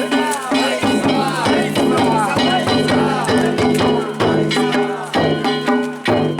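Danjiri festival music: drums and hand gongs struck in a steady rhythm, the gongs ringing on between strokes.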